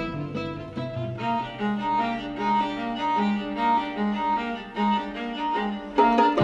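String quartet music: bowed violins and cello playing short repeated notes in a steady rhythm over a held low note, which drops out about five seconds in before the music grows louder near the end.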